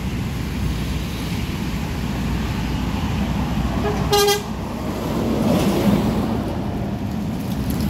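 Intercity coach bus gives one short horn toot about four seconds in as it approaches, then its engine and tyres pass close by, loudest around six seconds in, over steady traffic noise.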